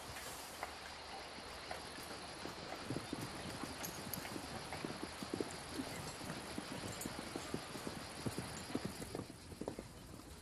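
Horse hooves clip-clopping on the ground in irregular, uneven strikes, thickest from about three seconds in and stopping near the end, over a steady background hiss.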